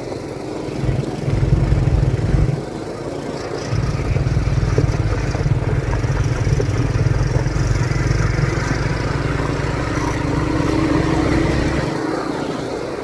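ATV engine running under way, a steady low drone with a tone that rises slightly near the end.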